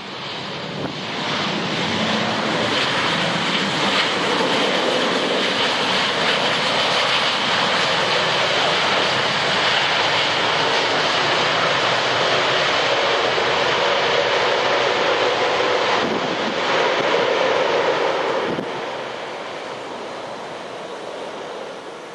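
Boeing 737-800's CFM56-7B jet engines spooling up in reverse thrust on the landing rollout, just after touchdown: a loud, steady jet noise that swells about a second in, holds for some seventeen seconds, then falls away a few seconds before the end as the thrust comes back and the jet slows.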